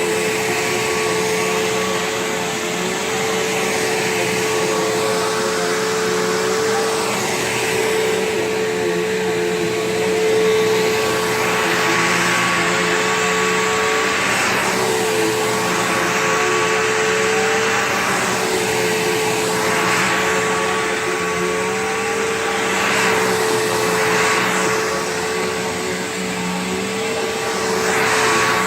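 Bissell PowerGlide Platinum bagged upright vacuum running with a steady motor whine. Its rushing airflow noise swells and eases every couple of seconds.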